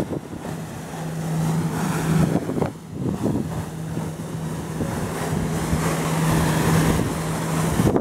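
A watercraft engine runs steadily at one constant pitch under wind buffeting the microphone and rushing water. The engine note drops out for about a second a little over two seconds in.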